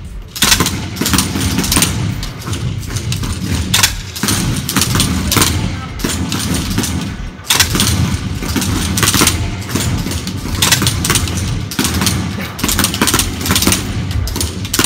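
Simulated rifle fire from several air-powered M16 trainer rifles: many sharp shots at irregular intervals, often several a second and overlapping, over a steady low rumble.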